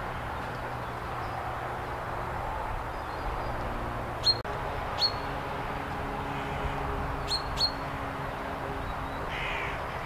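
Common chaffinch calling: four short, sharp, high notes that drop quickly in pitch. One comes near the middle, another follows just after, and a quick pair comes about two seconds later, over a steady background hiss.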